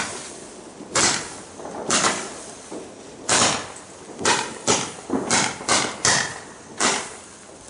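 Weco Fire-Fighter 86-shot firework battery firing single shots, about nine sharp bangs. They come roughly a second apart at first and follow each other faster after the midpoint.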